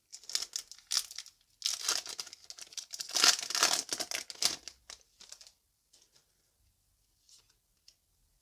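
Foil Yu-Gi-Oh booster pack wrapper crinkling and tearing open by hand, loudest about three seconds in. After about five seconds only a few faint ticks of cards being handled remain.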